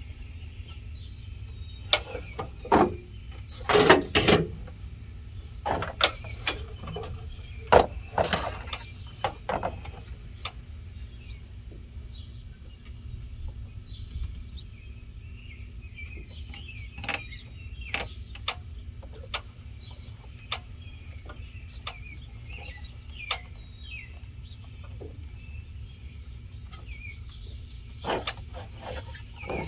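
Scattered sharp clicks and knocks of hands handling a porch light fixture and its wiring, busiest in the first ten seconds, over a steady low rumble with birds chirping faintly.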